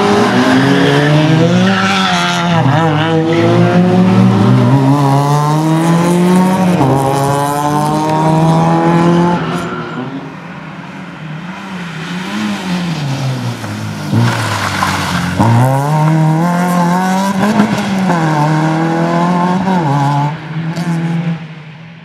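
Fiat Cinquecento rally car's engine revving hard, its pitch climbing and dropping again and again through gear changes and lifts. The engine drops away about ten seconds in, builds up loud again a few seconds later, and dies away at the very end.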